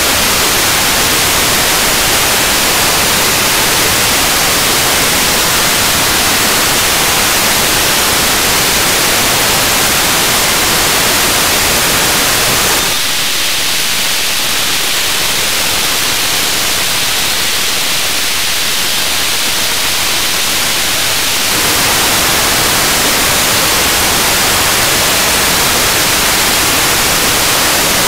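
Radio receiver static from a software-defined radio tuned to the Athenoxat-1 satellite's 437 MHz downlink. About 13 s in, the hiss turns thinner and higher for about eight seconds while the satellite's data signal comes through, then the plain static returns.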